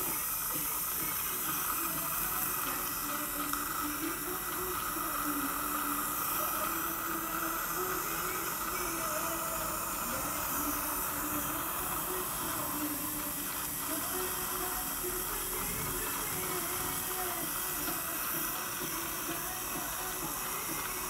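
Dental suction running through a saliva ejector mouthpiece in the patient's mouth: a steady hiss, with a faint steady high tone.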